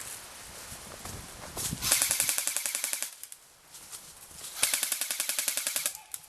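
Airsoft gun firing two full-auto bursts, each about a second long, at roughly fourteen shots a second.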